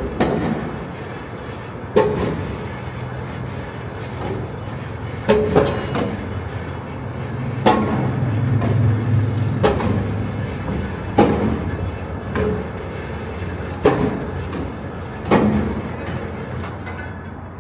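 Rail wheels rolling slowly over track: a steady low rumble with sharp clicks every second and a half to two seconds, like wheels passing over rail joints.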